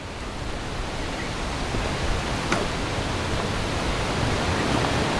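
Steady wind noise: an even rushing hiss that swells in over the first couple of seconds and then holds, with one faint click about halfway through.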